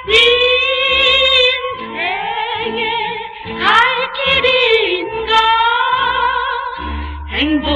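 Old Korean pop record playing: female voices singing held notes with wide vibrato over a band accompaniment with a low bass line.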